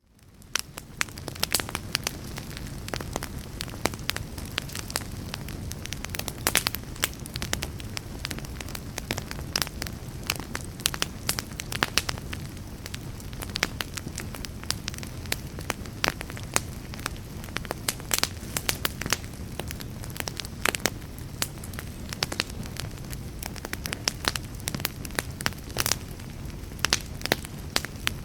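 Wood fire burning in a fireplace: a steady low rumble with frequent sharp crackles and pops of the burning logs, fading in at the start.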